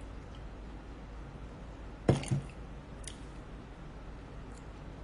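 A mug set down on a hard surface about two seconds in: a sharp double knock, followed by a small click about a second later.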